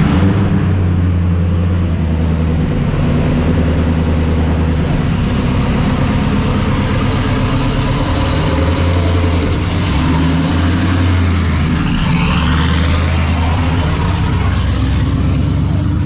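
LS V8 engine idling cold while it warms up, running a little unevenly. It runs on ethanol with tuning not set for the cold, which makes it temperamental until warm.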